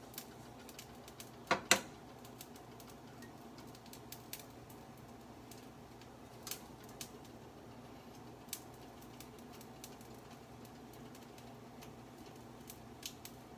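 A buttered grilled cheese sandwich frying on a griddle pan: scattered light crackles and pops over a low steady hum. Two louder clicks come close together about a second and a half in.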